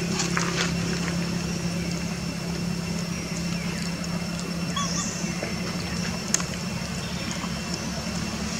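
Steady low hum of a motor running in the background, with a few faint chirps and a single sharp click about six seconds in.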